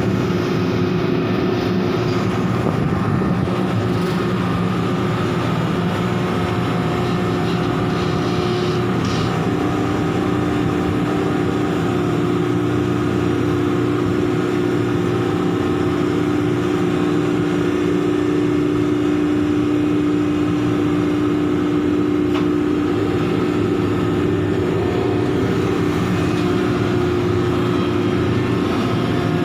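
Heavy machinery running steadily during coal unloading on a ship: a loud, constant engine drone with a steady whine, holding level without revving.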